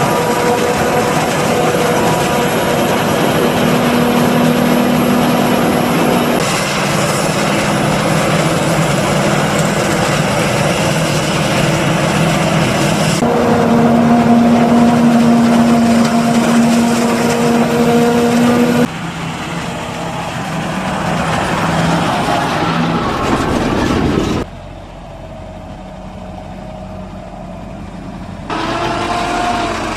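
Claas Jaguar 950 forage harvester and the John Deere tractors alongside it, running steadily as they chop and load maize: a loud, even machine drone with a held whine. The sound shifts abruptly several times and is quieter for a few seconds near the end.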